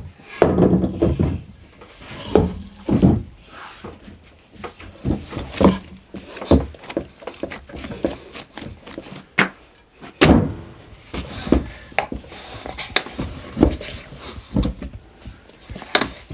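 Hands kneading and pressing yeast dough in an enamel bowl: irregular soft thumps and squelches, with the bowl knocking on a wooden bench now and then.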